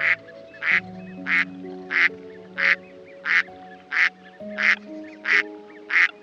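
An animal calling in short, regular calls, about ten in six seconds, over background music with slow sustained chords.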